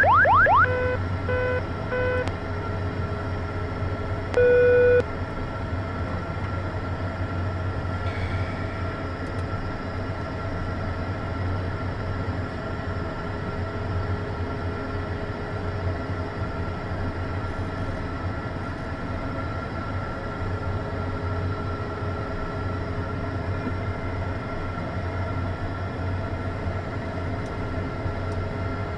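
Cockpit aural warning tones in a Beechcraft Premier I jet: three short beeps, then one longer, louder tone about four seconds in. A steady electrical hum with a fixed high whine from the powered avionics follows, with the engines not yet running.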